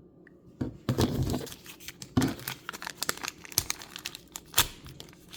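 Small plastic wrapper of a Mini Brands miniature being torn open and crinkled by hand, an irregular run of tearing and crackling that starts about half a second in.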